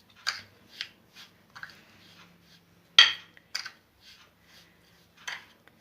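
A spoon clinking and scraping against a dish as sugar is stirred together with grated orange and lemon peel, with about six short clatters, the loudest about three seconds in.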